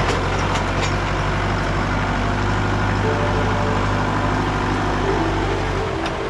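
A heavy work machine's engine running steadily, with a few sharp knocks in the first second; the engine sound drops away about six seconds in.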